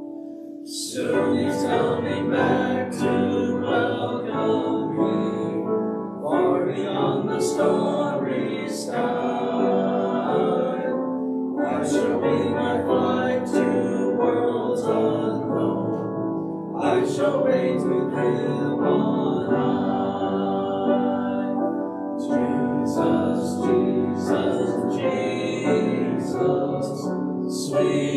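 A group of men singing a hymn together, phrase by phrase, with short breaks for breath about every five seconds.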